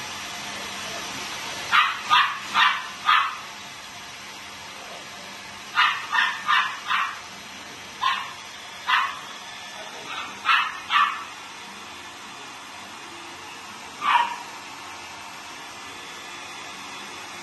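Australian Shepherd puppy giving a dozen or so short, high-pitched yips and barks in quick clusters of two to four, over a steady hiss.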